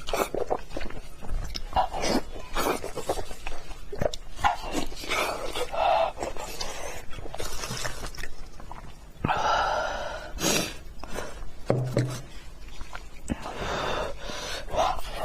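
Close-miked eating sounds: chewing and smacking clicks with panting breaths, and a short voiced hum or exclamation about ten seconds in.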